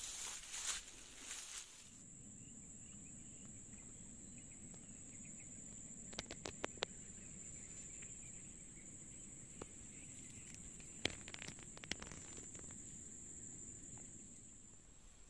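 A steady, high-pitched insect drone over quiet riverside ambience. Rustling and handling noise fills the first two seconds, and a few sharp clicks come about six and eleven seconds in.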